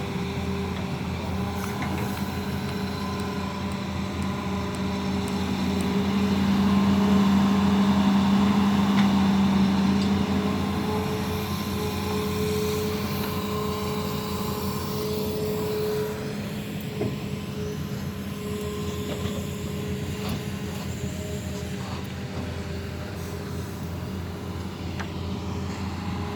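Hitachi Zaxis 200 hydraulic excavator's diesel engine running steadily while it digs, with a steady low hum. The hum grows louder from about six to ten seconds in, as under heavier load, and eases back after about sixteen seconds.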